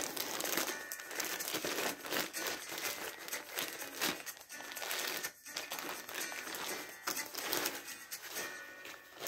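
Clear plastic packaging bag crinkling and rustling continuously as it is handled and turned over, with faint background music under it.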